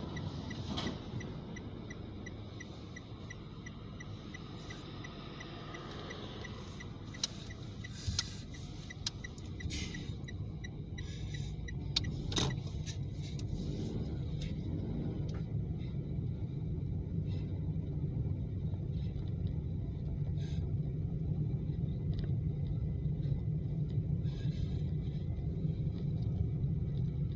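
Steady low rumble of a car on the road, growing louder and more even about a third of the way in, with a few sharp clicks and knocks.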